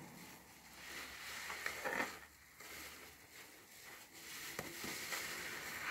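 Large foam car-wash sponge squeezed and kneaded by hand in soapy water: wet squelching and crackling suds, with water splashing back into the tub. It comes in repeated swells, with a few sharp wet clicks.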